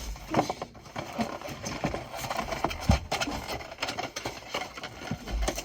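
Nerf gun box packaging being forced open by hand: irregular clicks, knocks and crackles as it is pulled and bent.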